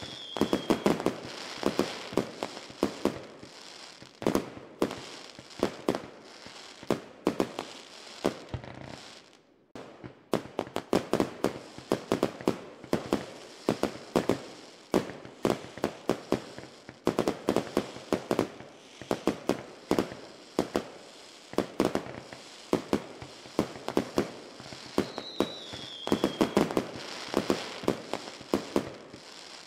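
Fireworks going off in a dense, continuous barrage of pops and bangs, with a short lull about nine seconds in. A brief high falling whistle sounds near the start and again near the end.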